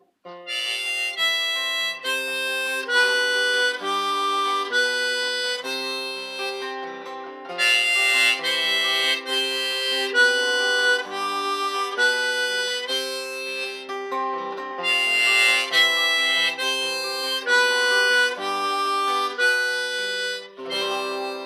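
Harmonica playing a melody of held notes over acoustic guitar: the instrumental intro of a song, starting abruptly just after the beginning.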